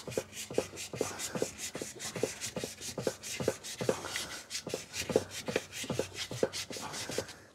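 Wet-and-dry sandpaper rubbed back and forth over the clothes dryer's idler post in even strokes, about two to three a second, stopping suddenly near the end. The post is being cleaned because its grippy surface made the idler stick and stop turning.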